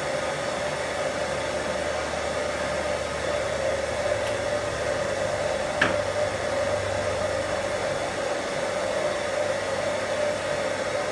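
Steady blowing roar of a gas forge burner running, with one light clink about six seconds in.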